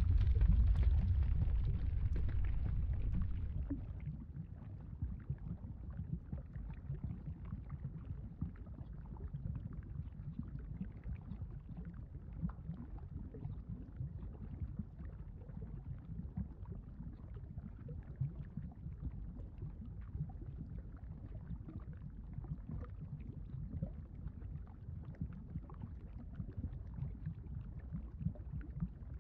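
Sound effect of molten lava rumbling: a low, steady rumble with fine crackling through it. It is louder for the first few seconds, then drops and holds steady.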